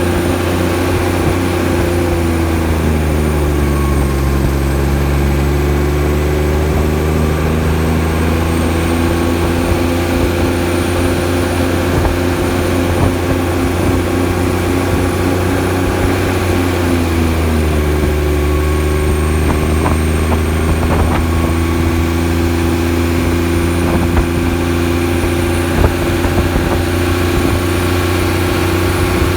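1995 Kenworth T800 diesel truck engine running on its engine brake on a long downhill, a steady loud drone. The pitch drops about three seconds in and climbs back up at about eighteen seconds.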